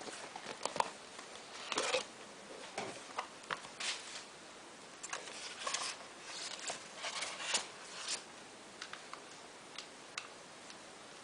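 Irregular handling noise: rustling and scraping with short sharp clicks, thinning out to a few single ticks near the end.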